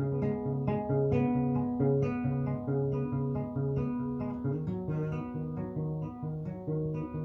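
Acoustic guitar playing an instrumental passage between sung verses, a steady picked rhythm over a repeating bass line.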